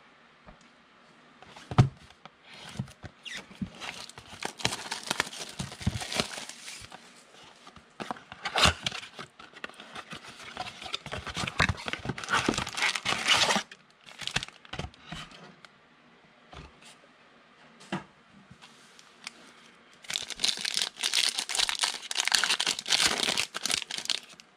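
Wrappers of Donruss football trading card packs crinkling and tearing as the packs are ripped open by hand. The rustling comes in three spells, with scattered clicks and a sharp knock near the start.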